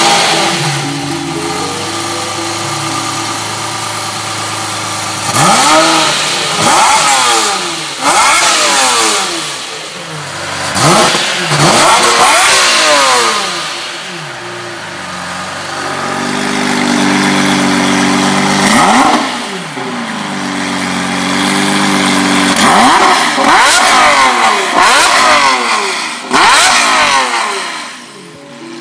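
Lamborghini Murciélago LP640's V12 breathing through an Fi Exhaust valved catback muffler and catless downpipe, idling and then revved in a series of sharp throttle blips that climb quickly and fall back to idle. A stretch of steady, raised idle sits between the bursts.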